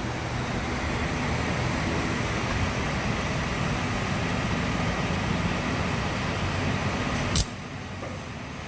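Steady rushing noise of a gas-station fuel pump running as it fills the boat's tank, cut off by a sharp click about seven seconds in, after which it is quieter.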